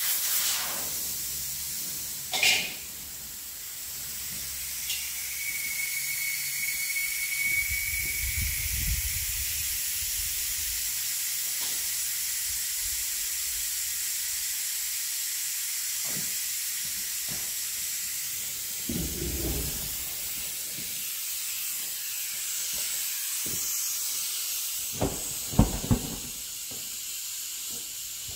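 Air hissing steadily out of a truck tire's inner tube through the open valve stem, with the valve core pulled so the tire deflates. A short whistle about five seconds in, and a few knocks near the start and again near the end.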